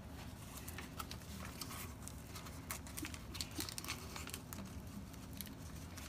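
Light rustling of transfer paper and soft taps and clicks as fingers smooth it flat and press tape down over a neoprene seat belt cover, over a faint steady low hum.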